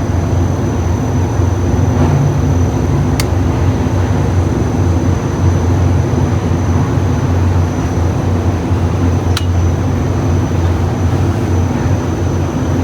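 Steady low machine hum, like a running motor, with a thin high whine above it and two faint clicks.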